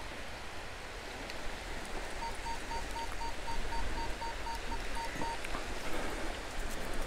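Metal detector giving a run of short electronic beeps at one pitch, about four a second, starting about two seconds in and lasting about three seconds, over a steady hiss of wind and surf.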